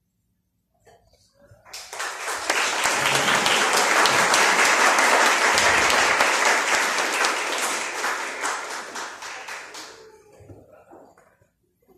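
A small audience applauding: the clapping starts about two seconds in, builds, holds for several seconds and dies away near the end.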